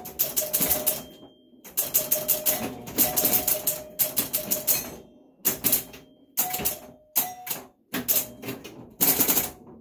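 Super Flite electromechanical pinball machine in play: bursts of rapid mechanical clacking as its score reels step and coils fire, broken by short pauses, with brief ringing tones among the clatter.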